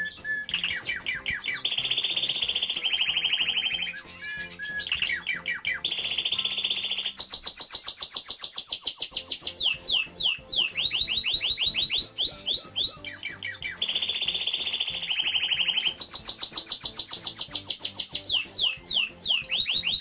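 Male Spanish timbrado canary singing a long song of fast trills and rolls, with runs of quick falling notes. The song comes in phrases with brief breaks about four seconds in and again about two-thirds through.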